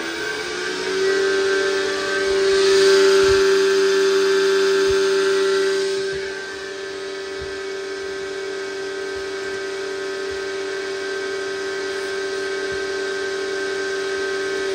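Mitsubishi FR-A740 variable-frequency drive running under test: a steady electric motor whine with a strong hum tone and many overtones. It rises in pitch at the start, as the speed is set on the dial, and drops away at the end. It is louder for a few seconds near the start, with a rushing noise over it.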